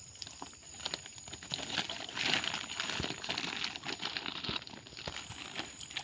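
A plastic sack crinkling and rustling while water splashes and patters around it, as fish taken from a net are dropped into the bag. Many small irregular clicks and patters, busiest a couple of seconds in.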